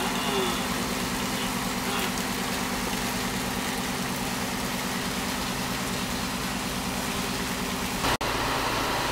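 A fishing boat's engine running at a steady cruising drone, with the rush of sea water along the hull. A short sharp break a little past eight seconds in, after which the drone carries on.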